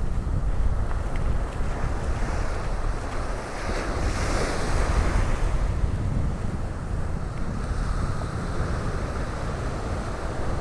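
Ocean surf breaking and washing ashore, a continuous rush of waves that swells and ebbs, with a breeze buffeting the microphone and adding a low rumble.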